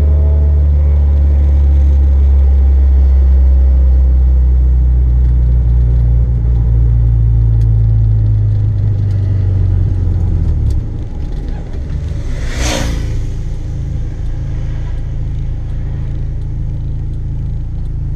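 Honda Civic EG's swapped K24 four-cylinder engine droning steadily at cruise, heard from inside the cabin, then easing off to a lower drone after about eleven seconds. A brief whoosh comes a couple of seconds later.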